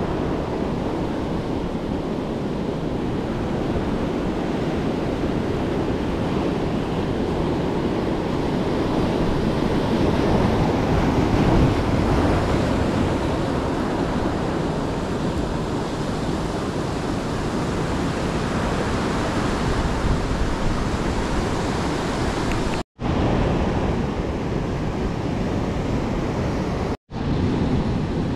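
Ocean surf washing onto the beach in a steady rush, with wind on the microphone. The sound cuts out completely twice for a split second near the end.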